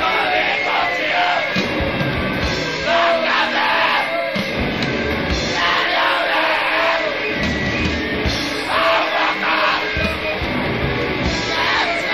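Loud noise-hardcore rock recording: distorted guitar, bass and drums with shouted vocals over the top.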